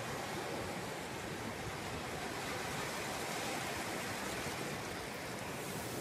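Small surf breaking and washing up over flat wet sand at the shoreline: a steady, even hiss of waves and foam with no single crash standing out.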